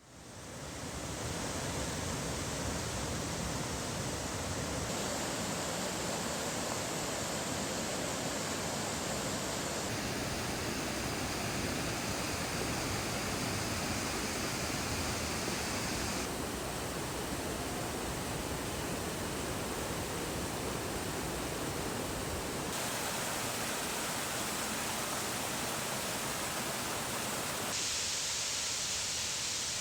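Rushing water of mountain waterfalls and cascades, a steady even rush whose tone changes abruptly every five or six seconds as one waterfall gives way to the next.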